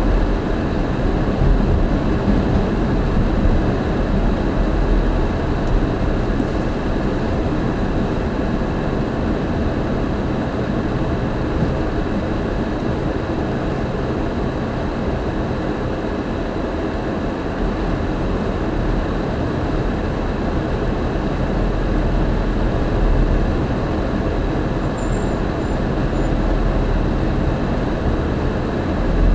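Steady engine and tyre noise heard inside a moving car's cabin: a low rumble with an even road hiss.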